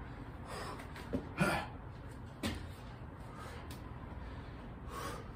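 A man's hard breaths and exhales during a burpee, with a few short thuds in the middle as his hands and feet land on concrete, and another heavy breath near the end.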